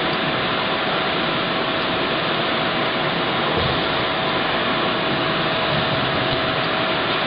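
Steady rushing machine noise, like a fan or ventilation running in a workshop, with one constant mid-pitched hum-tone through it.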